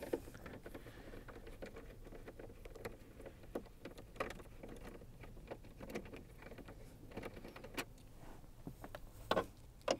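Small scattered clicks and taps of a hand-held 7mm socket driver turning out dash trim bolts, with a couple of louder knocks about four seconds in and near the end.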